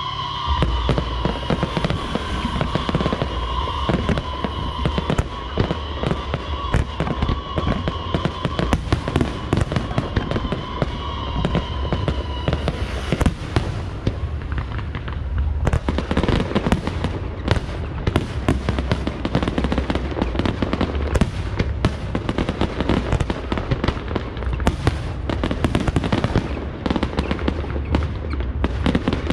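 Fireworks display: a dense, continuous run of bangs and crackles from shells and comets firing and bursting. A steady high whistle sounds over the first half and stops about 13 seconds in.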